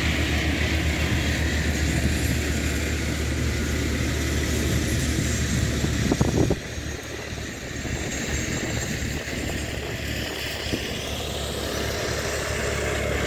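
Small engine of a two-wheel walking tractor with a sickle-bar mower, running steadily while mowing hay. A brief louder rush of noise comes about six seconds in.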